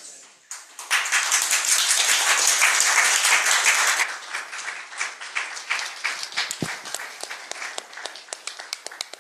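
Audience applauding. Dense, loud clapping starts about half a second in, then after a few seconds thins to scattered claps that die away.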